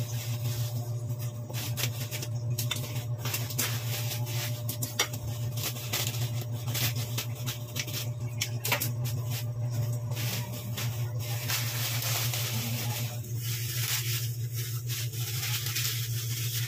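Scissors snipping and thin plastic noodle packets crinkling as they are cut open and handled: many short clicks and crackles, thinning out in the last few seconds, with a hissy stretch about two-thirds of the way through. A steady low hum sits underneath.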